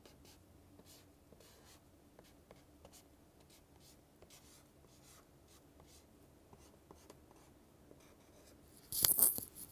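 Pen writing on paper: a faint run of short, scratchy strokes. About nine seconds in, a brief, much louder rustle.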